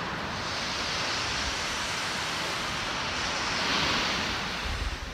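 Ocean surf washing on the shore, a steady rush that swells about four seconds in as a wave breaks, then eases.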